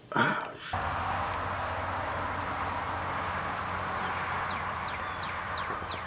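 Steady outdoor background noise with a low hum, starting abruptly just under a second in. From about halfway, a run of quick, high, falling bird chirps.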